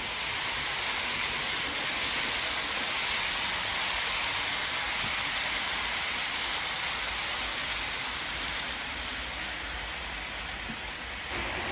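OO gauge model train, a Hornby Class 91 locomotive hauling Mk4 coaches, running along the track: a steady hiss of wheels on rails that eases slightly in the second half.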